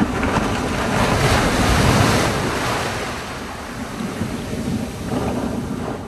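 Sea water washing, with wind buffeting the microphone in a low rumble. It swells to its loudest about two seconds in, eases, then rises again near the end.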